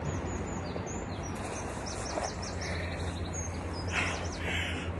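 A small songbird singing a run of quick, high chirps and whistles over steady outdoor background noise.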